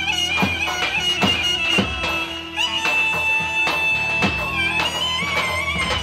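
Roman havası dance music: a reedy, high wind-instrument melody with wavering ornaments and long held notes over a steady drum beat.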